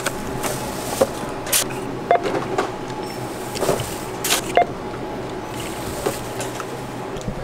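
Groceries handled at a store self-checkout: scattered clicks and knocks of bottles and packages being set down and bagged, over a steady store hum.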